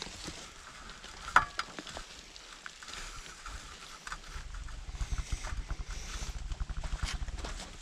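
Gloved hands scraping and packing filler around a metal stovepipe where it passes through a log wall: scratchy rustling with a sharp metallic clink about a second and a half in. From about four seconds on there is heavier low rubbing noise.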